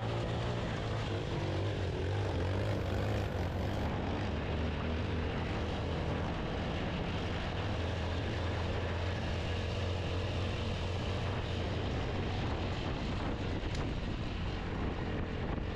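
Motorcycle engine running at a steady low pitch as the bike rides along a rough dirt road, with tyre and wind noise over it.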